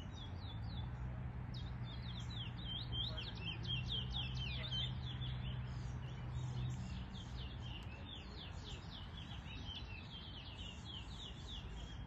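A towa-towa seed finch singing a long, fast run of short, high chirping notes. A low steady hum runs underneath for the first seven seconds or so.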